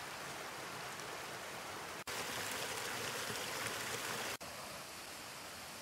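Small mountain brook running over rocks and splashing down little cascades: a steady rush of water in three short takes, a little louder from about two seconds in until near four and a half seconds.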